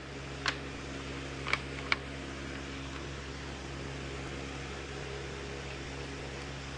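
Steady mechanical hum with an even hiss, like a running fan, with three light clicks in the first two seconds.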